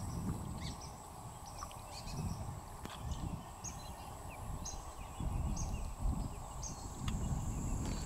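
A bird gives a short high call about once a second over a steady high insect-like whine. Irregular low rumbling swells louder in the second half.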